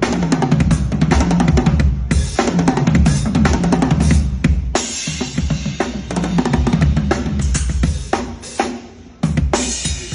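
Drum kit played in fast, dense fills of kick drum, snare and toms with cymbal washes. Near the end the playing drops away for a moment, then comes back in hard with a cymbal crash.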